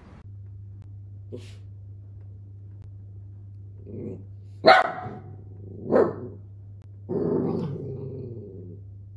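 A miniature dachshund barking: a soft woof about four seconds in, two sharp barks a little over a second apart, then a longer, drawn-out bark. A steady low hum runs underneath.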